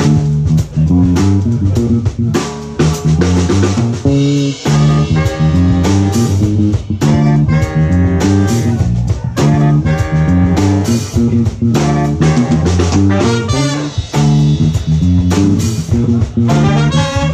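A live horn band playing an up-tempo funk tune: drum kit and a punchy repeating bass line, with saxophones and trumpet playing riffs that come in about four seconds in and again near the end.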